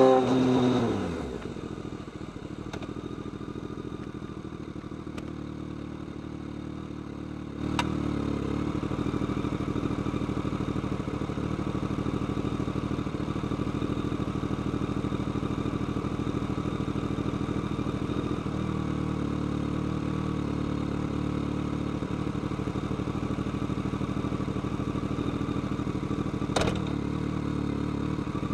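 BMW K1200R inline-four motorcycle engine and exhaust: the revs fall away in the first second or so, then it runs steadily at low revs. About eight seconds in there is a click and the engine note gets louder, then holds steady, with another click near the end.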